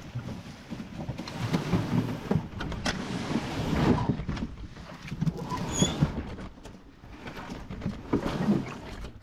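Canoe on the water: irregular paddle splashes and knocks against the hull, with wind on the microphone.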